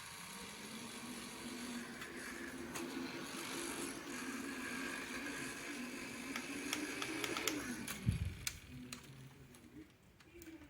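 Small electric neck fan running: a steady motor hum with the whir of its blades and a few sharp clicks. About eight seconds in the hum winds down, followed by a low knock.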